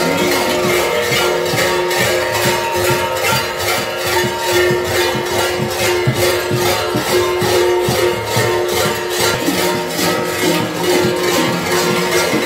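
Large metal kuker bells (hlopki) worn on a kuker costume clanging together in a steady, fast rhythm: a dense metallic jangle over sustained ringing tones.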